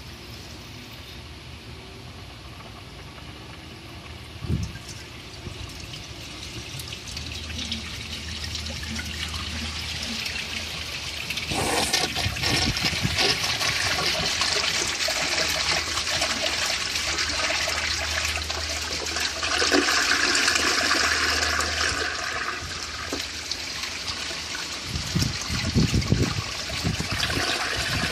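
1995 Gerber Mt. Vernon toilet flushing: a short knock about four seconds in, then water starts to run and builds up. About twelve seconds in it surges suddenly into a loud rush of water that keeps going, with a few low thuds near the end.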